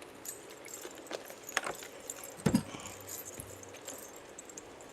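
Scratch-off lottery tickets being scratched and handled: scattered small scrapes and clicks, with one soft thump about two and a half seconds in.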